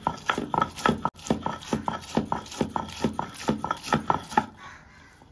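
Stone roller of a shil-nora rocked over a flat stone grinding slab, crushing chopped red onion into a paste: a fast, even run of stone-on-stone knocks, about four or five a second, stopping about four and a half seconds in.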